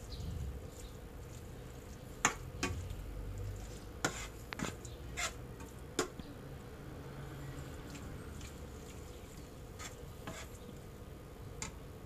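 Metal spoon stirring a thick curry of meat in a nonstick frying pan on low heat, with irregular clicks and scrapes of the spoon against the pan, most of them in the middle stretch and a few more near the end. A faint steady hum runs underneath.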